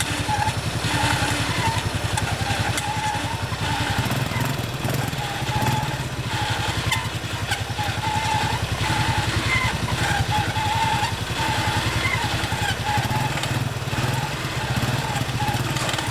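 Off-road 4x4's engine running steadily under load, its exhaust pulses continuous throughout with a wavering higher whine over it.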